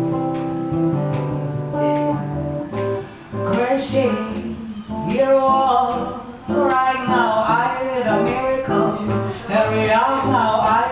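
Acoustic guitar playing chords, joined about four seconds in by a singing voice with vibrato and no clear words.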